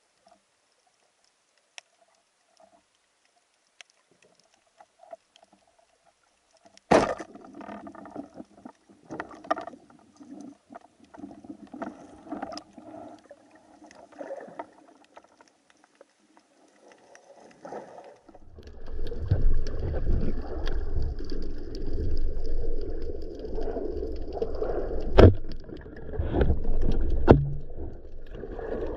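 Underwater sound picked up by a camera mounted on a speargun. It starts nearly silent with faint clicks, then about seven seconds in comes a loud knock followed by irregular sloshing and knocking of water. From about eighteen seconds a steady, deep rush of water noise sets in, broken by a few sharp clicks.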